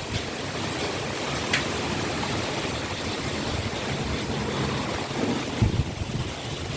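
Heavy rain falling in strong wind, a steady rushing noise, with a few low thumps near the end.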